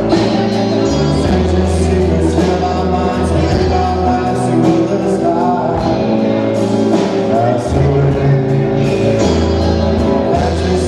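Live rock band playing, with a sung lead vocal over electric guitar, keyboard and drums keeping a steady beat.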